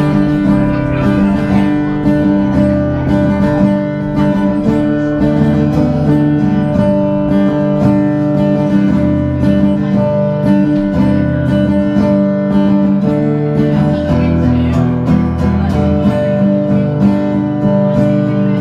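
Acoustic guitar strummed steadily through an instrumental break of a country song, with no singing.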